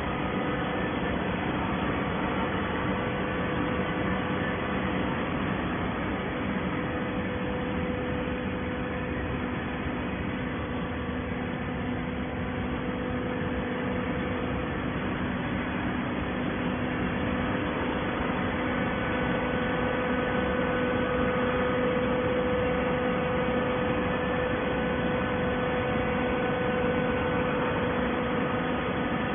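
Horizontal hydraulic waste-paper baler running: a steady mechanical hum with a constant whine from its hydraulic power unit, growing slightly louder in the second half.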